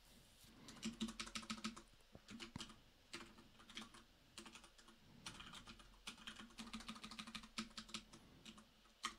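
Faint typing on a computer keyboard: quick runs of key clicks broken by short pauses.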